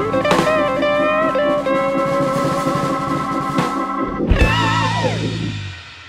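Instrumental background music with guitar and drums, ending on a last held chord with a wavering note that fades out near the end.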